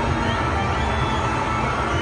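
Din of a large crowd mixed with loud music, steady throughout.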